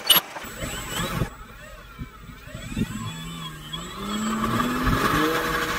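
Electric motor of a radio-controlled model Cessna 152 whining as it is throttled up, its pitch rising in steps and getting louder over the last couple of seconds.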